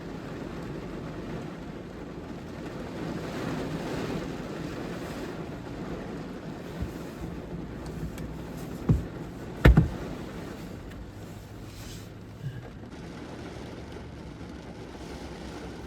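Steady low road and engine rumble of a car being driven, heard from inside the cabin. About nine to ten seconds in come two sharp, loud thumps, followed by a fainter one a few seconds later.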